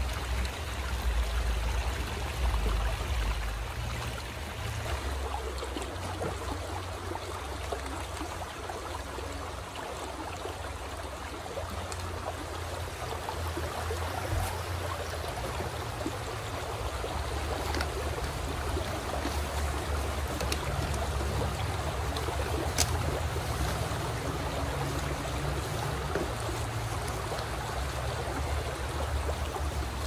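Shallow, rocky forest stream running in a steady, even rush of water, with a few faint clicks.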